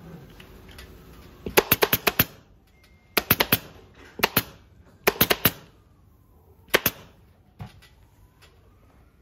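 Pneumatic upholstery staple gun firing into fabric on a sofa frame: sharp clacks in quick runs of two to seven shots, six runs in all, the last a single shot.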